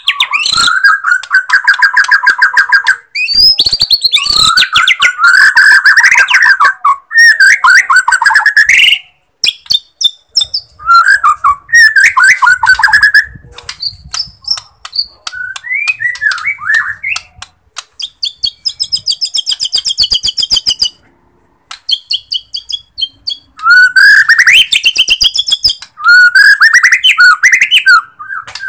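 Borneo white-rumped shama singing a loud, varied song. Rapid chattering rattles and trills are mixed with whistled phrases that sweep up in pitch, coming in bursts with short pauses and one silent gap of about two seconds past the middle.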